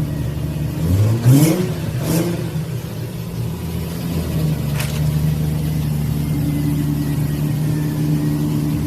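Audi A4's engine idling, with two quick throttle blips about one and two seconds in, then running on at a steady idle.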